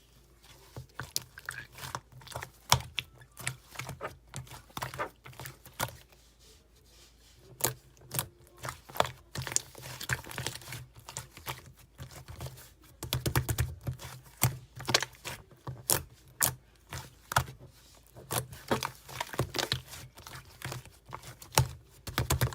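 Slime being squeezed and poked by hand, giving irregular wet clicks, crackles and small pops.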